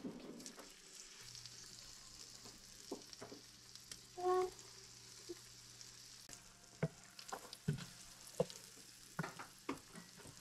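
Sheepshead fillets frying in butter in a skillet: a faint, steady sizzle with scattered pops and crackles. About four seconds in, a brief high squeak stands out.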